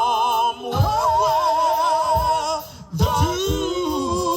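Gospel band of organ, drums and bass playing under a held sung note between phrases, the pitches wavering with a wide vibrato. Low drum hits fall through it, and the music drops out for a moment just before the next sung word about three seconds in.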